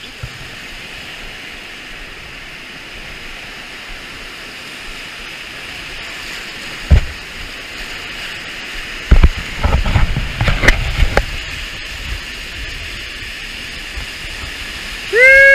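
Whitewater rapids rushing steadily around an inflatable raft, with loud thumps and splashes of water hitting the boat about seven seconds in and again in a cluster around nine to eleven seconds in.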